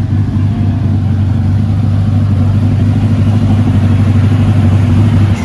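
Lamborghini Countach V12 engine running steadily at idle, its deep even note holding throughout with the level creeping up slightly.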